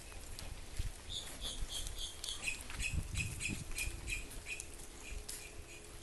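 A bird calling a series of short repeated notes, about three a second, that step down in pitch partway through. Light thumps and taps sound underneath.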